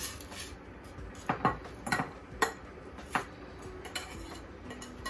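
Metal knife and spoon clinking and scraping against a ceramic bowl while ground seasoning paste is scraped off the utensils. It comes as a series of short, sharp clinks, starting about a second in and spaced irregularly over the next few seconds.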